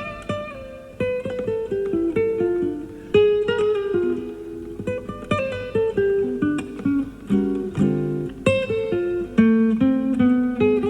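Classical guitar played live, a quick run of single plucked notes broken by chords, heard from an old cassette tape of an FM radio broadcast.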